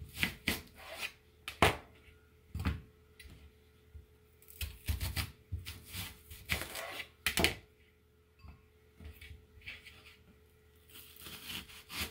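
Chef's knife slicing a red onion into thick rounds on a plastic cutting board: an uneven series of cuts, with a short lull about two-thirds of the way in.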